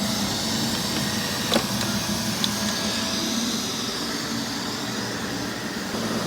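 Robot vacuum cleaners running on carpet: a steady whir of motors and brushes, with two light clicks about a second and a half and two and a half seconds in.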